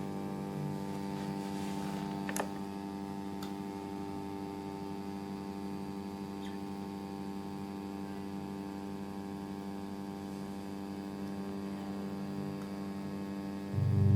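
Drone-noise music opening on a steady electric hum of many stacked tones, with a few faint clicks a couple of seconds in. Near the end a much louder low drone comes in.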